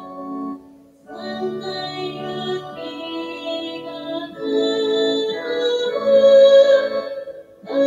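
Music with singing, in phrases of held notes. There is a short break about a second in and another near the end, and it gets louder in the second half.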